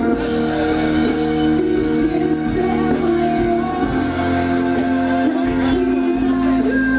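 Live pop concert music played loud over an outdoor PA system, with singing.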